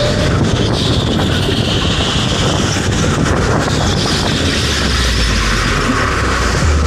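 Onboard sound of a go-kart racing round an indoor track: a steady rush of motor, tyre and wind noise. Music with a pulsing bass sits underneath and grows stronger near the end.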